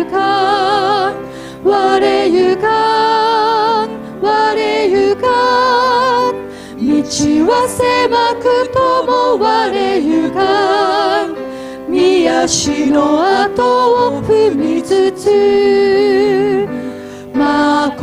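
A Japanese hymn sung by a small group of singers, women's voices with vibrato to the fore, with grand piano accompaniment. The singing goes in phrases with short breaks between lines.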